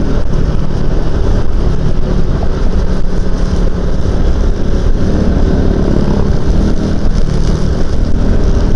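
Motorcycle riding at road speed, heard through an action camera: steady, loud wind buffeting on the microphone over the engine running at a constant pace.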